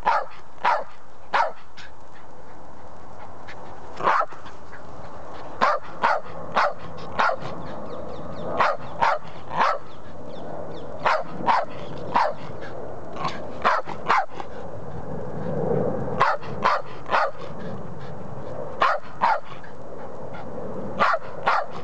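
Patterdale Terrier barking over and over for a tennis ball to be thrown. The barks are short and sharp and come in runs of two to five, with pauses between.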